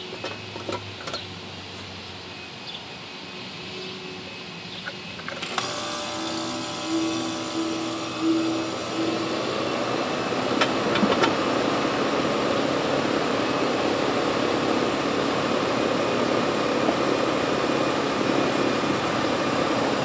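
Rheem central air conditioner's outdoor condensing unit starting up about five and a half seconds in: it comes on suddenly, builds over the next few seconds as the compressor and condenser fan come up to speed, then runs steadily. The startup current of about 8 amps marks a normal, healthy start.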